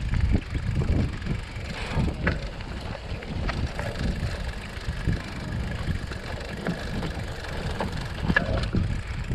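Wind rumbling on the microphone as a mountain bike rolls over a rough dirt trail, with scattered clicks and knocks from the bike rattling over bumps.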